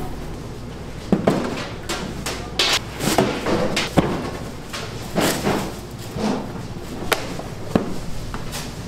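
Irregular knocks and clatter from handling a clear plastic dough tub and its lid on a stainless steel worktable, mixed with thuds as bread dough is turned out and cut with a plastic scraper.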